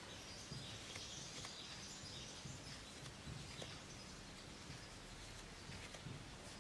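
Faint soft rustling and a few small ticks of a crochet hook drawing acrylic yarn through stitches, over quiet room tone.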